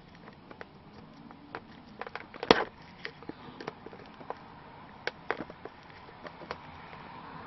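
Small tape-wrapped flat screwdriver clicking and scraping against the plastic screw-access cap on a 1999 Land Cruiser's steering wheel as it is pried open, in scattered light ticks with one sharp click about two and a half seconds in.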